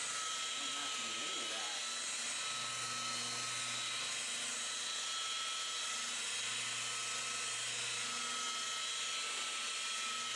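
A small electric motor runs steadily with a constant high whine and hiss, as from a paint buffer or polisher worked over a car's paint; a lower hum swells and fades every couple of seconds as the tool is moved.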